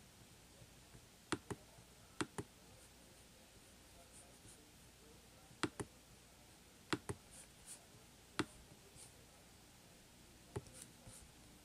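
Computer mouse button clicking, mostly in quick pairs, scattered through the stretch.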